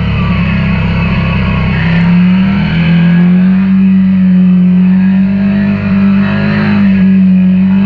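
KTM 890 Duke R's parallel-twin engine running steadily under load. Its pitch dips briefly and climbs again about two seconds in.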